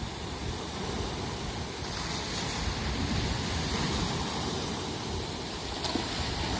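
Storm-driven sea waves breaking and washing over the rocks at the shore, a steady rushing hiss that swells about two seconds in. Wind buffets the microphone with a low rumble underneath.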